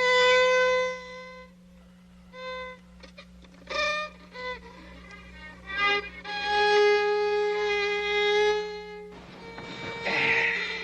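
Violin bowed in long held notes with short breaks and a few quick changes of note between them, with a brief rasping noise near the end.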